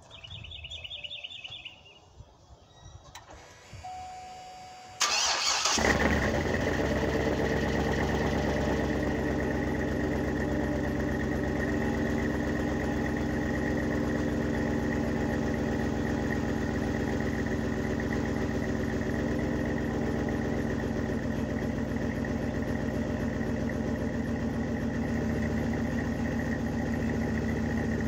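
Cadillac Escalade ESV V8 starting on a cold start through a Flowmaster Super 44 muffler: it fires up with a loud burst about five seconds in, then settles into a steady idle.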